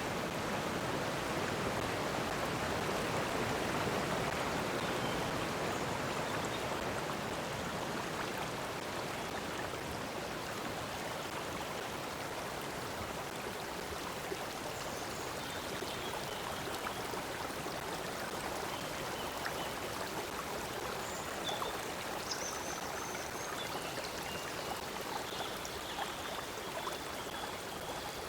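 A stream flowing steadily, a continuous babble of running water, with faint, short, high bird chirps coming in over it in the second half.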